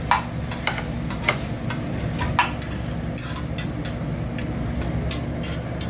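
Metal spatulas clinking and scraping on a hibachi flat-top griddle, with a few sharp clanks in the first two and a half seconds and lighter quick taps after, over the steady sizzle of food cooking.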